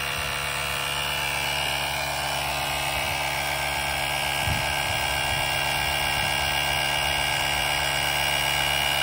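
Portable Andeman cordless air compressor running steadily as it pumps up a car tire toward its preset 34 PSI cut-off, a continuous small-motor buzz that grows slightly louder.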